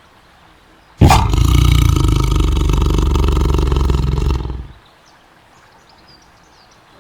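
Tiger roaring: one long, loud roar that starts suddenly about a second in and dies away after about three and a half seconds.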